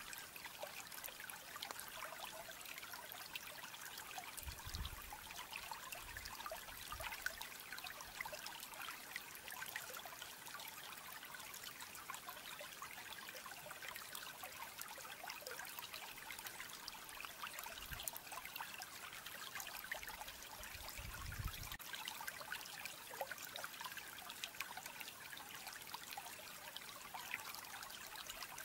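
Steady trickling of running water, like a small stream, with a few brief low rumbles through it.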